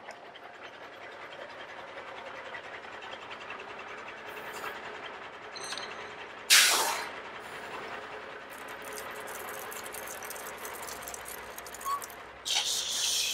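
Heavy truck driving sound: a steady running noise, with one loud, sharp hiss like a lorry's air brake about halfway through and more hissing near the end.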